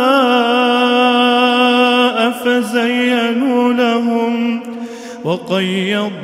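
A man reciting the Quran in melodic tajweed, drawing out a long vowel with a wavering, ornamented pitch. About five seconds in the voice falls away briefly, then a new phrase begins on a rising pitch.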